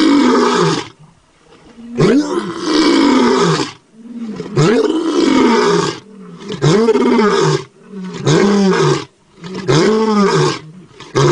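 Lion roaring in a bout of repeated calls, each with a rise and fall in pitch and each shorter than the one before, with short pauses between them.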